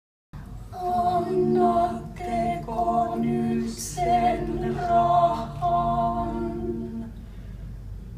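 Small group of mixed male and female voices singing a cappella in harmony: a chant of short held chords repeated one after another, stopping about seven seconds in.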